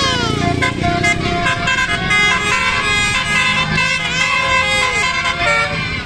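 Basuri telolet horn on a Sanjaya Trans tour bus playing a quick multi-note melody, its chords of tones stepping from note to note.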